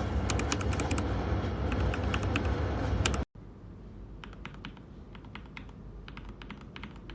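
Typing on a mechanical keyboard with factory-lubed Gateron Pro Milky Yellow linear switches: a steady run of keystroke clacks. About three seconds in the sound cuts abruptly to a quieter take of the same typing; the louder first part has a low hum under it.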